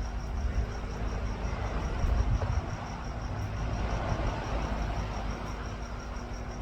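Crickets chirping in a steady, rapid, high-pitched pulse over a low rumble that swells briefly about two seconds in, with a faint steady low hum underneath.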